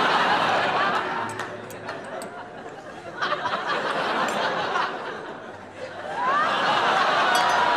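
Studio audience laughing, in swells: loud at the start, rising again about three seconds in, and loud again near the end.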